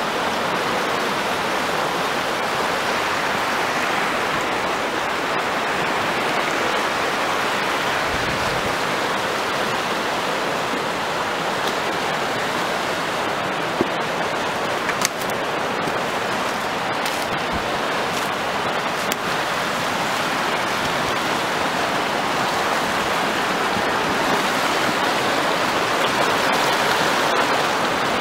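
Whitewater rapids of the Emory River: fast water rushing over rocks in a steady, even roar.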